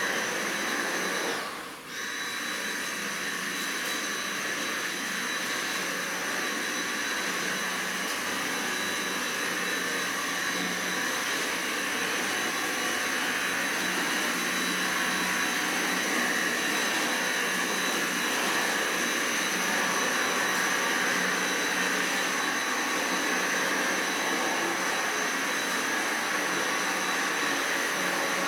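Stick vacuum cleaner running steadily with a high whine over its motor noise. It cuts out briefly about two seconds in, then starts up again.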